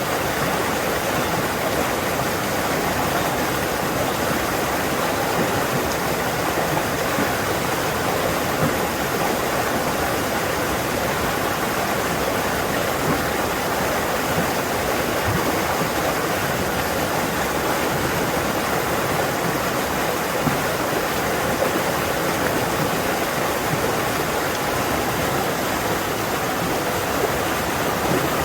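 Fast-flowing forest stream rushing loudly over rocks, a steady dense splashing and gurgling of water.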